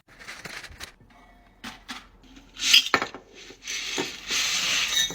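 Dry spaghetti being put into a tall storage container: hard clicks and taps against the container, a loud clatter about three seconds in, then a steady rushing slide of the pasta strands near the end.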